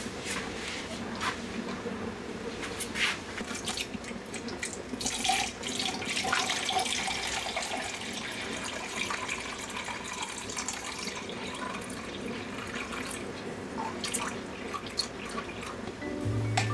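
Water running from a tap into a kitchen sink, with splashing and occasional light clinks and knocks as things are rinsed or handled.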